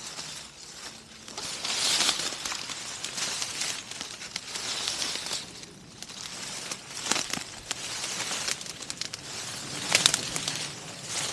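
Footsteps crunching and rustling through dry fallen leaves and brush, an uneven run of crackling steps with a few sharper snaps.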